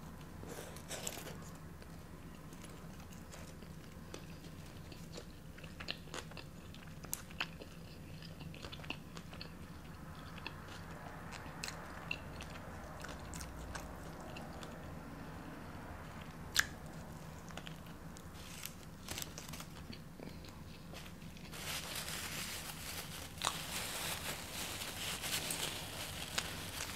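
Quiet, close-up eating sounds: biting and chewing of crunchy fast food, with scattered small clicks and a denser stretch of crackling near the end.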